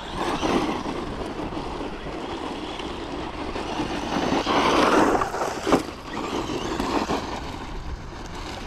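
FTX Ramraider brushless 1/10 RC monster truck driving, its motor, drivetrain and tyres making a rushing noise that rises and falls in three swells, loudest about five seconds in. A single sharp knock comes just before six seconds.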